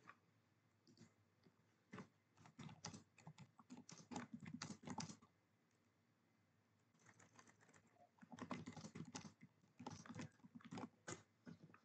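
Faint computer keyboard typing: two runs of quick keystrokes with a pause of about two seconds between them.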